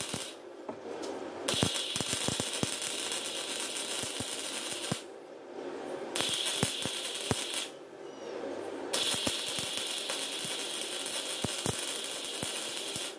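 MIG welder arc crackling and hissing in runs of a few seconds, stopping three times for about a second between welds.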